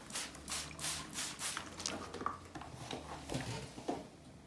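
A trigger spray bottle squirting water onto clothes for ironing: a quick run of short hissing squirts in the first couple of seconds, then softer rustling and knocks of the fabric and iron being handled.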